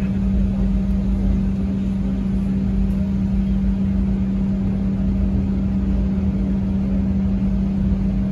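Steady travelling vehicle's cabin drone: a constant low hum with a deep rumble under it, unchanging throughout.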